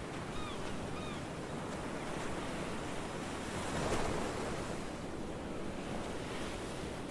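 Sea surf washing steadily onto a sandy beach, swelling to its loudest about four seconds in as a wave breaks. Two short bird calls sound in the first second.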